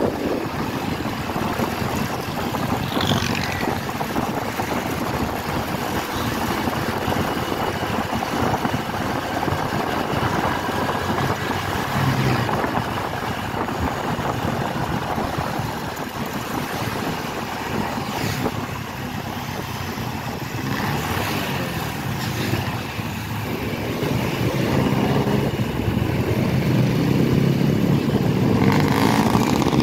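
Motorcycle running at road speed, its engine note under a steady rush of wind and road noise, with surrounding traffic; the engine grows louder over the last few seconds.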